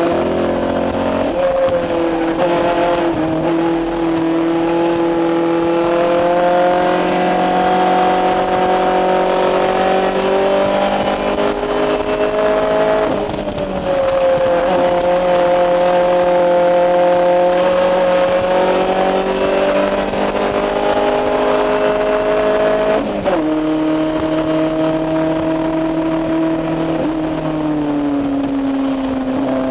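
Honda ITC race car's four-cylinder engine heard from inside the stripped cabin at racing speed, its pitch climbing slowly under throttle. The pitch changes sharply three times: about a second in, about halfway through with a brief drop in loudness, and about three quarters of the way through.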